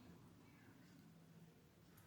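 Near silence: faint room tone with a low electrical hum.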